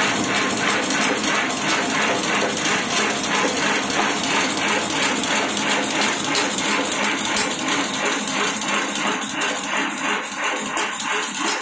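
Automatic agarbatti (incense stick) making machine running, with a fast, even mechanical clacking as it feeds bamboo sticks and pushes out paste-coated sticks.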